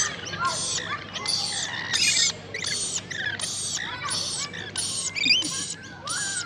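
Birds calling: high, scratchy chirps repeating about twice a second, with other whistled, gliding calls mixed in.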